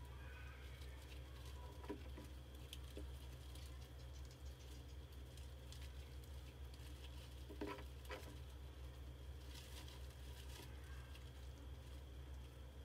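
Faint scattered ticks and scratches over a steady low hum, with a few faint high chirps in the first second, a pair of sharper clicks just before the middle, and a brief rustle a little later.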